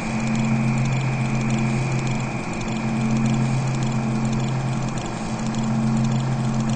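Steady low hum of two held tones with a fast, even rattle over it, unchanging throughout.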